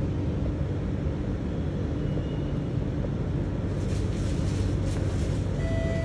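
Steady low rumble of a Circle Line MRT train standing at an underground station platform. Scattered hissy clicks come in during the last couple of seconds, and a steady tone starts near the end.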